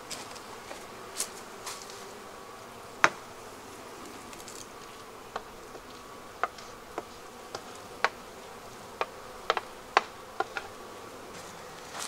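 Honeybees buzzing around open hives in a steady hum, with scattered sharp clicks and knocks from wooden hive frames being handled, the loudest about three seconds in.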